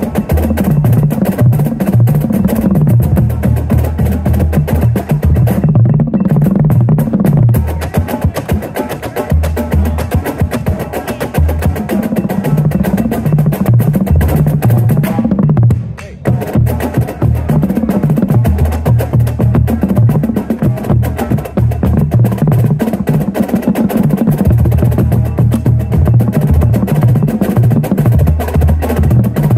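Marching bass drum line of five tuned Yamaha bass drums playing a flam warm-up exercise: a dense, rapid run of low drum strokes with the notes moving between the differently pitched drums. There is a short break about sixteen seconds in before the playing resumes.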